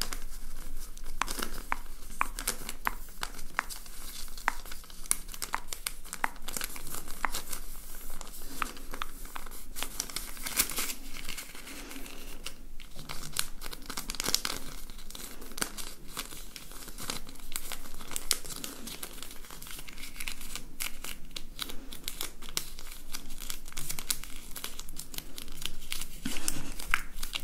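A thin paper till receipt crinkled, bent and folded between the fingertips close to the microphone: a dense, continuous run of small crisp crackles.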